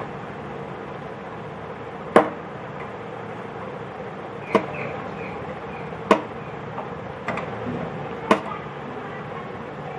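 Sharp metallic clicks of an 8 mm spanner on a gas stove's brass burner jet and sheet-steel frame as the jet is unscrewed, about five of them, irregularly spaced, over a steady background hum.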